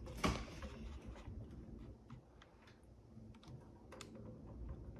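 Light, scattered clicks and taps of a metal multitool being handled and worked against the screws and plastic housing of a digital bathroom scale, with one sharper click just after the start.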